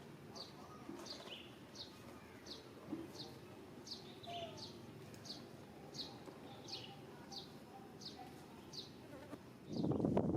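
A short, high, falling chirp repeated steadily, about three every two seconds, over a faint background. Near the end a loud, rough, rushing noise sets in abruptly.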